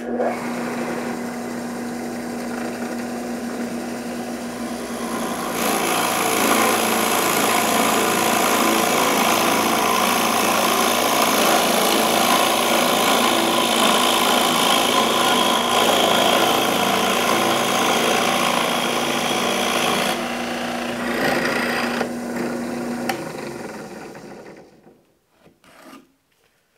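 Drill press starting up and running with a steady hum. About five seconds in, a half-inch carpenter's spade bit bores into dense white oak with a loud rasping cut for about fifteen seconds. The cut then ends and the motor winds down near the end.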